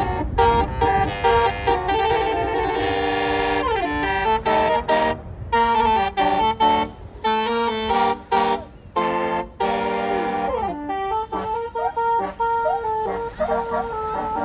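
Basuri telolet bus horn playing a quick melody of stepped notes, broken by short pauses, over the low rumble of a bus engine.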